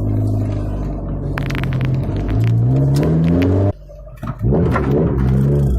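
2004 Lotus Elise S's K-series four-cylinder engine running through a Janspeed aftermarket exhaust: idling, then revved up about halfway through, dropping away sharply, then blipped again and settling back to idle.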